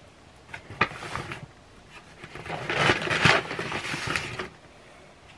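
Takeout packaging being handled while food is unpacked: a couple of light knocks about a second in, then a louder crinkling rustle from about two and a half to four and a half seconds.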